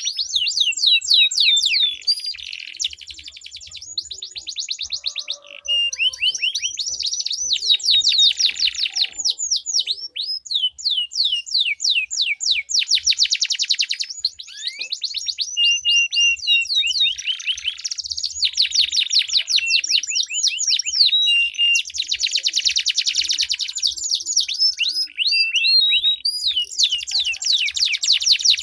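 Domestic canaries singing a long, unbroken song of fast trills and rolls, each phrase a rapid run of repeated high notes, changing pattern every second or two.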